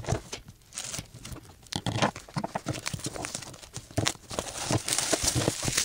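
Clear plastic shrink-wrap being torn open and peeled off a magazine, crinkling and crackling in many quick scratchy strokes as fingers pick at it.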